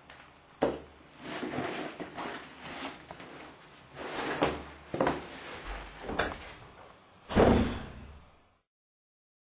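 High-heeled shoes knocking on a hard wooden floor in uneven steps, then a door slamming shut about seven seconds in, the loudest sound.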